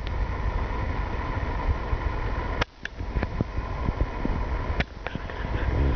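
Child's mini electric dirt bike riding along an asphalt driveway: a steady motor whine over a heavy low rumble, with the sound dipping briefly twice.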